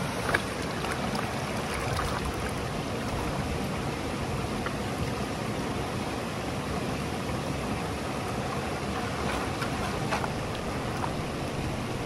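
Shallow mountain creek running steadily over rocks, with light splashing as a plastic gold pan is shaken and washed down in the current.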